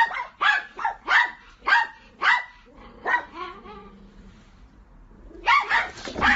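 A dog barking repeatedly, about two barks a second for the first three seconds. After a short pause it breaks into a burst of rapid barks near the end.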